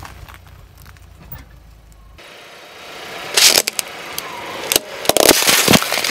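A car tyre rolls onto a plastic jar of gel beads and crushes it: a rising crunch from about three seconds in, a loud crack, then a run of sharp cracks and pops as the jar splits. Before that, a low steady hum that cuts off after about two seconds.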